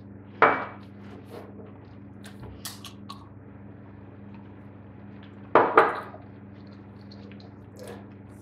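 Tableware on a wooden table: a sharp clink with a short ring about half a second in, and a drinking glass set back down with a double knock just before six seconds, with a few small ticks in between. A steady low hum runs underneath.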